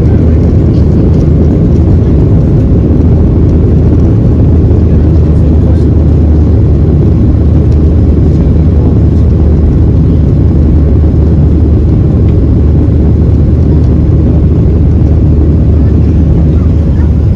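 Steady, loud low rumble of engine and airflow noise inside the cabin of a Boeing 737-800 in flight.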